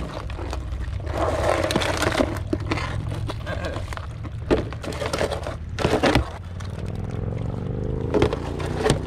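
Hollow knocks and scraping of a plastic cooler's lid being handled and fitted shut. The knocks come mostly in the second half, over a steady low rumble.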